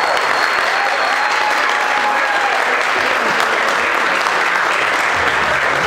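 Audience applauding steadily as the dance music stops. Music with a low beat comes back in near the end.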